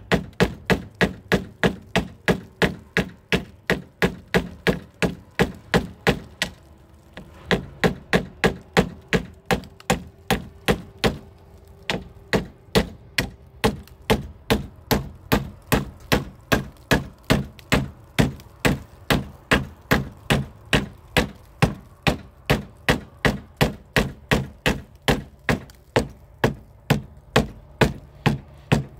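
Hammer striking wood in a fast, steady rhythm of nearly three blows a second, with a short break about six and a half seconds in.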